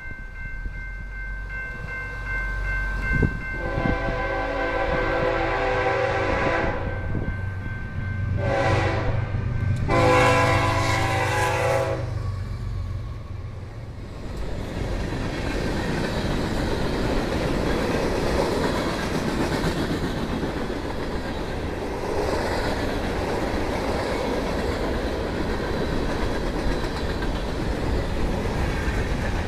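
Freight train's diesel locomotive horn sounding a chord in long blasts, the loudest two about 4 and 9 seconds in, over the deep rumble of the locomotives' diesel engines. About 12 seconds in the horn stops and the freight cars roll past with a steady rumble and clatter of wheels over the rails.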